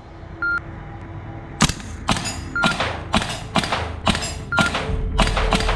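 Edited intro sound effects: short electronic beeps about every two seconds, then a quick run of about nine sharp shot-like cracks, roughly two a second, with a low steady drone coming in near the end.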